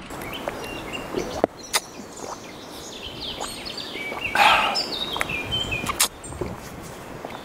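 Songbirds singing in spring woodland, one giving a descending run of whistled notes about halfway through. A few sharp clicks and a brief burst of handling noise come from the cyclist's water bottle.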